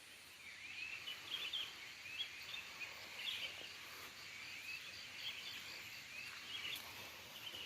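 Faint birdsong: many short chirping calls, over a steady high insect buzz.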